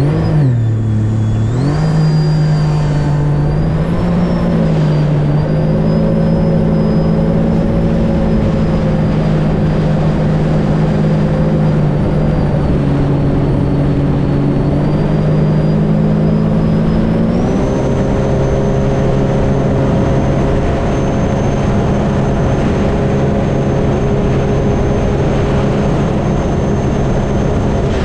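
2021 Sea-Doo RXT-X's supercharged Rotax 1630 ACE three-cylinder engine running hard on a top-speed run, pushing a Solas 13/18 three-blade impeller. The engine note dips briefly near the start, then holds steady, and steps up to a higher steady pitch a little past halfway.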